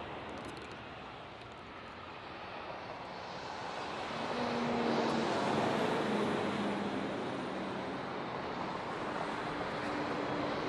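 Jet engines of a Boeing 767-300ER rolling on the runway: a steady rushing noise that swells about four seconds in and stays loud, with a few faint steady tones.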